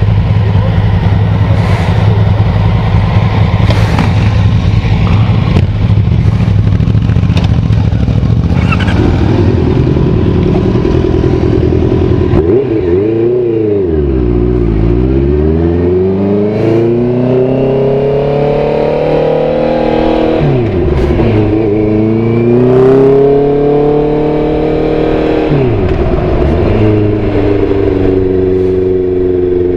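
Motorcycle engine heard onboard while riding, with wind rushing over the microphone for the first several seconds. After that the engine note comes to the fore, its revs dropping sharply and climbing back three times.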